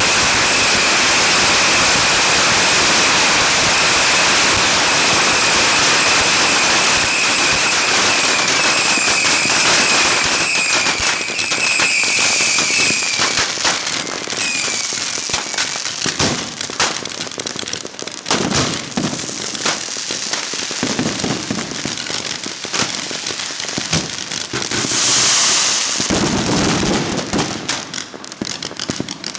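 A beehive rocket fortress firing: masses of bottle rockets go off together in a dense, continuous hiss and crackle, with a high whistle running through it. About fourteen seconds in it thins to separate bangs and cracks, with a loud whooshing burst of rockets near the end.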